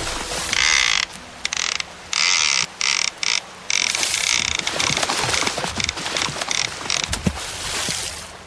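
Fishing reel ratcheting in quick spurts broken by short pauses, then running on more steadily and fading out near the end.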